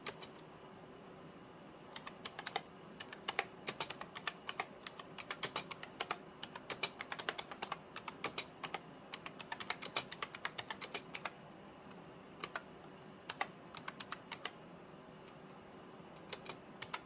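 Typing on an IBM Model M 1391401 keyboard, its buckling-spring key switches clacking with each keystroke. A fast run of keystrokes starts about two seconds in and lasts to past the middle, then a few scattered presses follow near the end.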